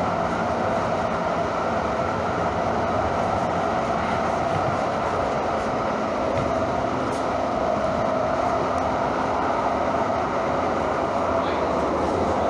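Calgary Transit CTrain light-rail car running along the track, a steady, even rumble and rush of wheels and motors with no change in pace.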